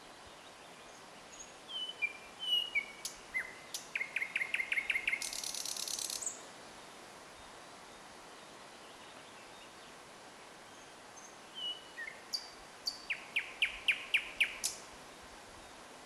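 Nightingale singing two phrases. Each opens with a few thin whistles and then a fast run of repeated notes; the first phrase ends in a buzzing rattle.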